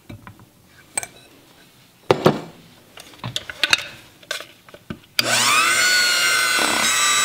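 A few clinks and taps of glass bowls as flour is tipped into cookie batter, then an electric hand mixer switches on suddenly about five seconds in and runs steadily, its pitch sinking slightly just after it starts as it beats the flour in.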